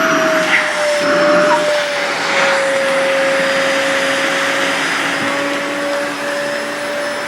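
Sharp EC-KP7F-A vacuum cleaner running steadily, a motor whine over the rush of air. The whine sinks slightly in pitch over the first couple of seconds, then holds.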